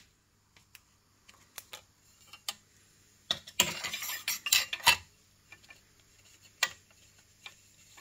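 Metal water pump plate and gasket being handled and set down over the driveshaft onto an outboard lower unit's gear housing: light metallic clinks and taps, with a denser run of them between about three and five seconds in and one sharp click near the end.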